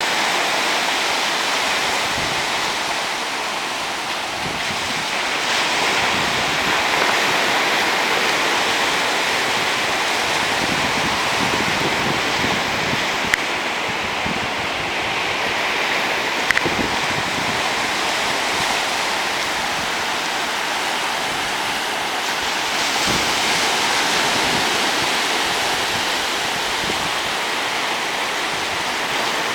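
Low surf breaking and washing up on a flat sandy beach: a steady hiss of waves, with a couple of brief sharp clicks about halfway through.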